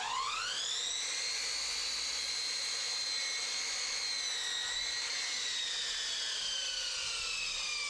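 Electric power tool motor whining up to speed over about a second, running at a steady high pitch, then slowly dropping in pitch through the second half.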